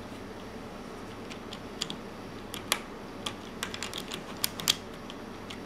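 Irregular small plastic clicks and taps as the pieces of a Gear Cube puzzle are handled and pressed together while a corner piece is worked onto the inner 3x3 core, with a sharper pair of clicks about four and a half seconds in.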